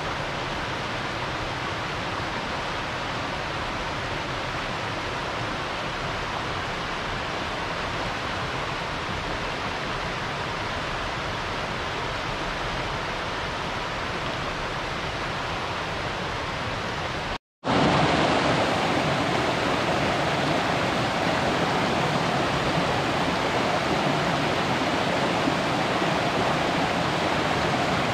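Waterfall rushing: a steady hiss of falling water. It cuts out for a moment about two-thirds of the way through, then comes back a little louder.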